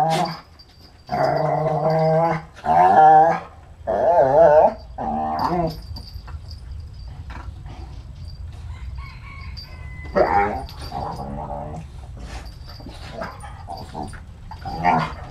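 Two dogs, a Rhodesian Ridgeback and a smaller white dog, play-fighting with long, wavering growl-howls: four in the first six seconds, then a quieter stretch and another about ten seconds in.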